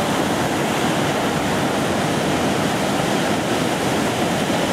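Heavy ocean surf breaking and washing ashore: a steady rush of whitewater noise.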